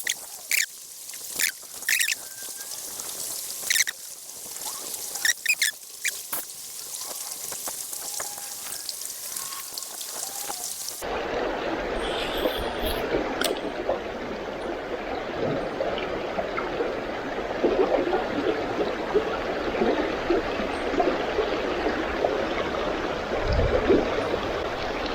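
Mountain stream water rushing and trickling, with scattered sharp clicks over the first half. About 11 seconds in, the sound changes abruptly to a louder, fuller, steady rush of water.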